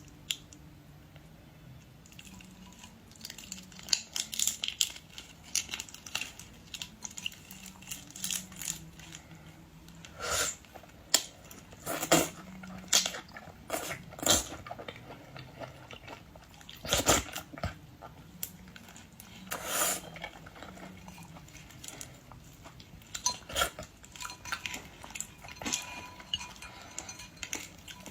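Close-up eating sounds of boiled shrimp and lobster: shells crunching and cracking as they are peeled, chewing, and clinks of dishes, in scattered irregular clicks and crunches, a few louder ones near the middle.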